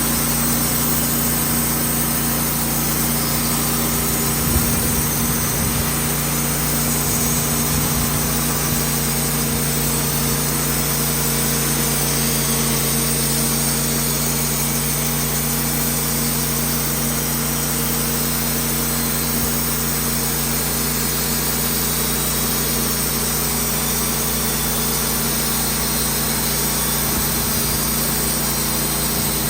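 Wood-Mizer portable band sawmill's engine running steadily, with one brief knock about four and a half seconds in.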